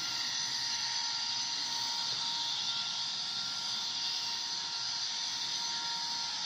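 Model train running along the layout track: a steady hissing whir of wheels and motor with a faint high whine.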